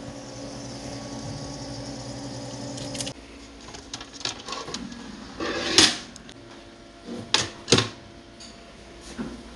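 A drinks refrigerator hums steadily for about three seconds. Then a wooden book stand is slid out of a shelf and handled: light clicks, a scraping slide about six seconds in, and two sharp wooden knocks close together near the end.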